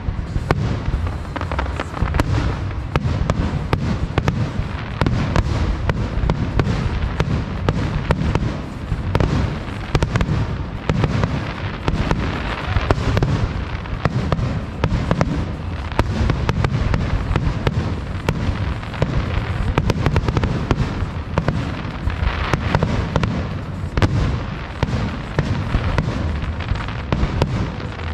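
Fireworks display going off in a dense, continuous barrage of bangs and crackles, with deep booms underneath and no let-up.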